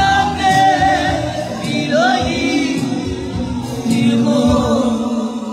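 A man singing into a handheld microphone over backing music, his melody wavering and sliding between held notes, with a beat thumping underneath.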